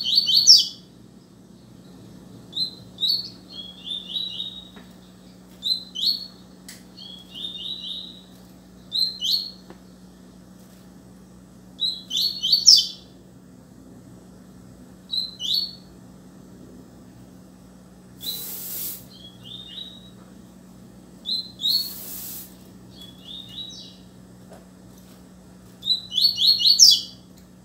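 Double-collared seedeater (coleiro) singing: short, rapid, high twittering phrases repeated every second or two. Two brief bursts of noise come about two-thirds of the way through, over a faint steady hum.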